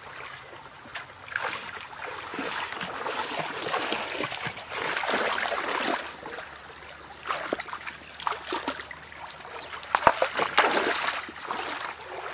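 Water splashing and sloshing in a shallow rocky stream as feet and hands churn through it, in uneven bursts over the running stream. The loudest splashes come about five seconds in and again about ten seconds in.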